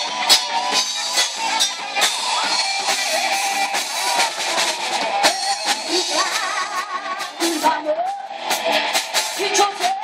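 Live southern rock band playing: electric guitars and a drum kit, with a woman singing lead.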